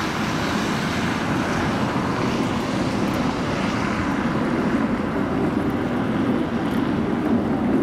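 A tram running past on street track: a steady noise of wheels and motors mixed with city traffic.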